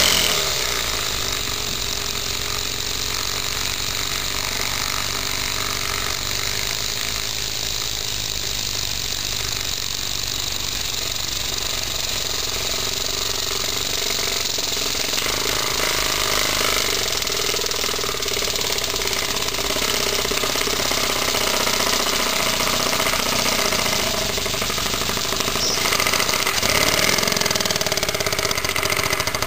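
Small two-way oscillating engine running on the combustion gas of a slow-burning black-powder fuel grain, beating rapidly and evenly over a steady hiss. It starts with a sharp onset.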